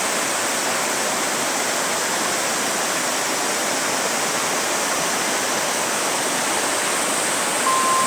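Steady rush of flowing water, like a stream or river running, even and unbroken.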